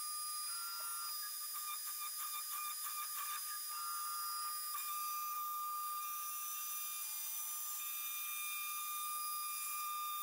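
Makita trim router on a WorkBee CNC spinning at high speed while it mills a board, a steady high-pitched whine. Shorter tones come and go and shift pitch in steps as the gantry moves.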